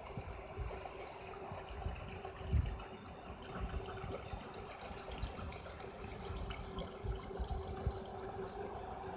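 Automated shrimp-feeding boat under way on a pond, its drive churning the water in a steady splashing wash over a faint steady motor hum.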